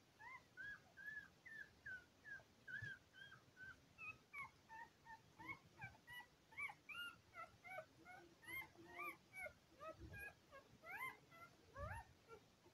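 Border Collie puppies crying in a rapid run of short, high squeaks that rise and fall, several voices overlapping, faint.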